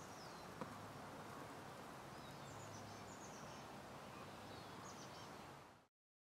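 Faint outdoor ambience in a grassland: a steady low hiss with a few distant bird chirps, then the sound cuts off abruptly to dead silence near the end.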